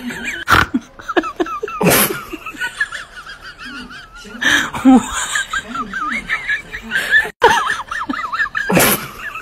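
High-pitched, wavering laughter throughout, broken by about five short loud bursts.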